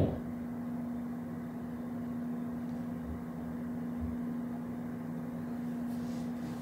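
A steady low electrical hum, with a short knock right at the start and two faint low thumps a few seconds in.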